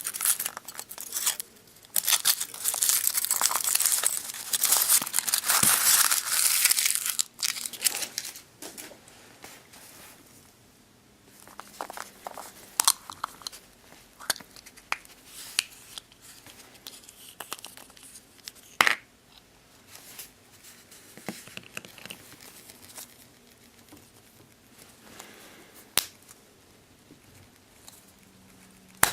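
A chocolate surprise egg's foil wrapper being torn open and crinkled for about the first eight seconds, then quieter scattered crinkles and a few sharp clicks.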